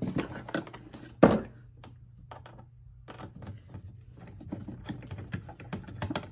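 Irregular clicks and knocks of a screwdriver and a long screw being worked into a hard plastic toy car seat, with one louder knock about a second in.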